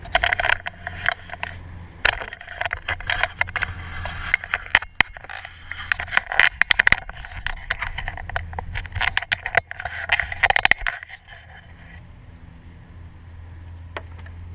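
Metal parts scraping and clicking in quick, irregular strokes for about eleven seconds while working at a fuel injector bore of a 6.7 Powerstroke diesel, then stopping; a steady low hum runs underneath.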